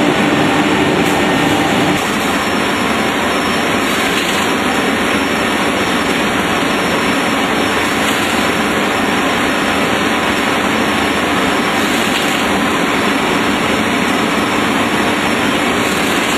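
Adult diaper production machine running at speed: a loud, steady mechanical drone, with a faint hum underneath that fades about two seconds in.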